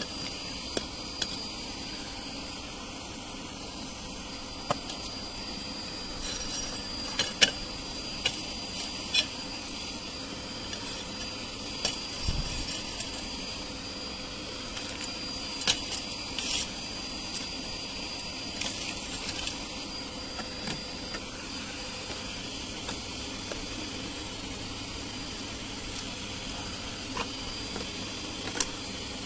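Home-built furnace running: a steady rushing noise with a thin high whine that stops about two-thirds of the way through, and scattered crackles and ticks.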